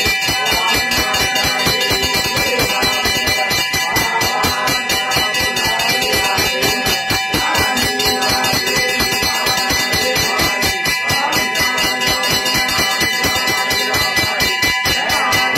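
Temple bells ringing continuously with fast, even strikes, about five or six a second, their tones hanging on steadily between strikes.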